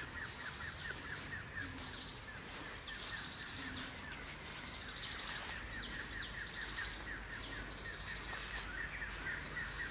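Tropical forest ambience: insects keep up a steady high-pitched whine and rapid repeated chirping, with scattered bird calls. One thin high tone drops out about three and a half seconds in.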